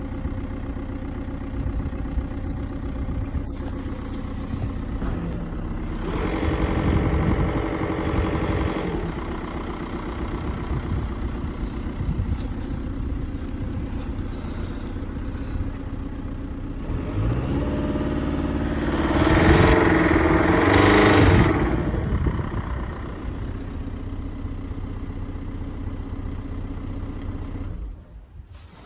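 SEAT Alhambra 2.0 TDI four-cylinder turbodiesel engine idling, revved up twice: once about six seconds in and again, longer and louder, from about seventeen to twenty-two seconds in. It is running with a strange noise that the owner is trying to identify.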